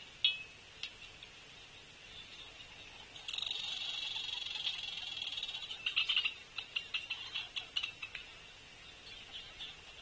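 Animal calls: a high, buzzy trill of rapid pulses lasting about three seconds, then a quick run of sharp chips and clicks, over a faint steady high hum.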